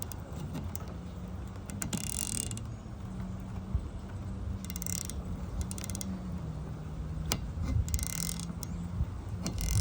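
Snap-on XFRR704 ratcheting box wrench clicking as it is worked back and forth on a nut, in three short bursts of rapid ratchet clicks with a few sharp metal knocks between them, over a steady low hum.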